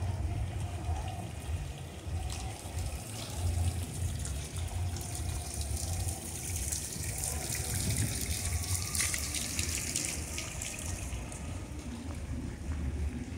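Running, splashing water that swells for several seconds around the middle, over a steady low rumble.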